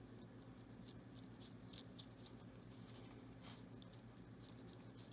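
Near silence: room tone with a low steady hum and a few faint light ticks and rustles from hands handling a super glue tube and a thread-wrapped lace.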